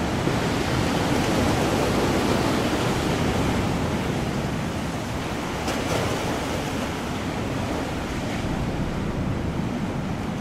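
Rough ocean waves and surf: a steady rushing noise, a little fuller in the first few seconds and easing slightly toward the end.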